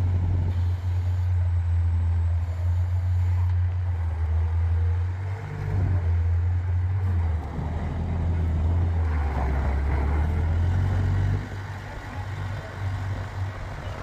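Bobcat 843 skid steer loader's diesel engine running as the machine drives and turns, a steady low drone that wavers in pitch a couple of times and drops in level about eleven seconds in.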